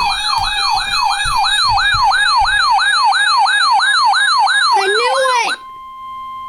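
Electronic siren in a fast yelp, about three sweeps a second over a steady tone; it winds down and cuts off about five and a half seconds in. A single steady alert tone of an Emergency Alert System weather warning follows.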